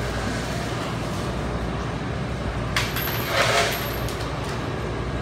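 Steady low rumble of background noise, with a sharp click about three seconds in followed by a short rasping burst.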